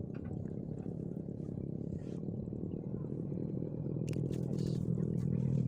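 A motor vehicle engine rumbling steadily, growing louder near the end, with a few faint clicks over it.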